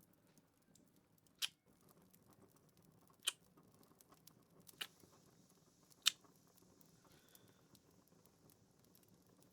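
Four short kiss smacks about a second and a half apart, over faint campfire crackle.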